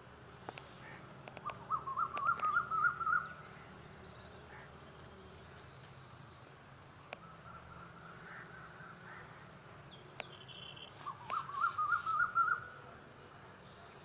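A bird calling in two loud bursts of rapid repeated notes, each about two seconds long and rising slightly, with a fainter bout in between, over a steady low background rumble.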